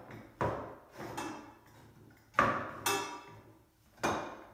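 Metal wheelbarrow frame tubes knocking and clanking against each other and the tabletop as a screwdriver is worked through their holes to line them up; about five sharp knocks, the loudest about two and a half seconds in.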